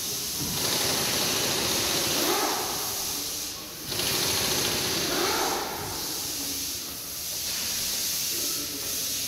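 A steady, loud hiss that drops away briefly a few times.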